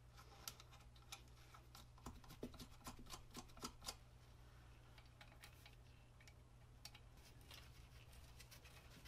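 Faint clicks and light taps of small steel parts being handled and fitted during reassembly of a lathe turret tailstock, most of them in the first four seconds, over a steady low hum.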